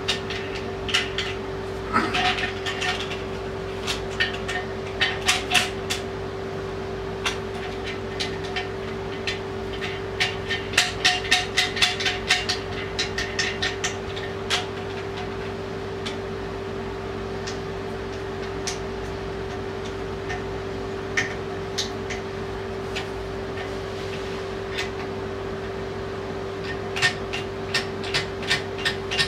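Scattered clicks and knocks of hard plastic and metal parts being handled while a bidet seat is fitted to a toilet and its water connection, busiest in the first half and again near the end. A steady hum runs underneath.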